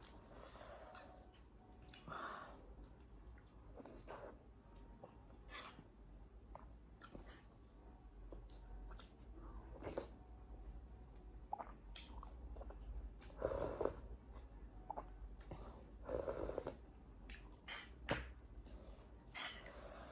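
A person chewing and biting crunchy fried pork close to the microphone, with irregular crunches and a few louder bites scattered through.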